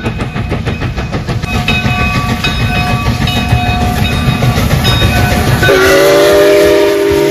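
Canadian Pacific 2816, a Hudson-type steam locomotive, passing close with rapid exhaust chuffing and its wheels running on the rails. Near the end its steam whistle sounds a long, loud multi-note chord.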